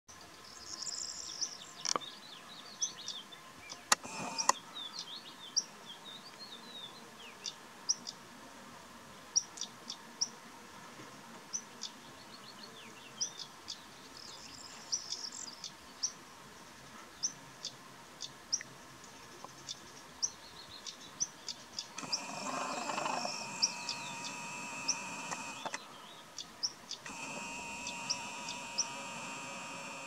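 Small birds chirping with many short, high calls, and a few sharp clicks in the first five seconds. In the last third the Nikon P900's zoom motor whirs twice, a steady whine of a few seconds each, as the lens zooms out.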